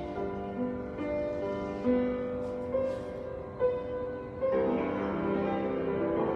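Slow, gentle keyboard music with long held notes, in the style of piano worship music. About four and a half seconds in, it swells into a louder, fuller chord.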